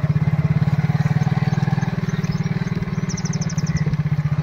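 Motorcycle engine running steadily at low speed, its exhaust beating fast and even.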